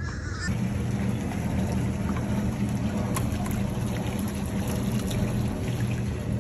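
Water sloshing and trickling in a floating net bait pen holding live pilchards, over a steady low mechanical hum that starts about half a second in.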